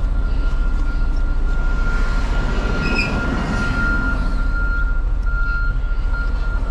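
Semi truck running steadily with a low rumble, with a louder noise swelling and fading about three seconds in, like a vehicle passing.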